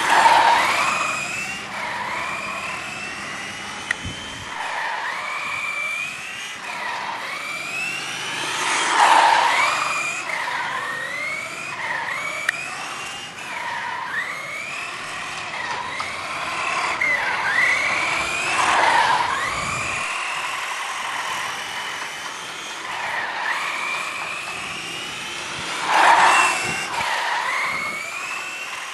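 A 1/10-scale radio-controlled buggy's motor revving up and down over and over as it is driven, its pitch rising and falling with the throttle, with a few louder, noisier surges along the way.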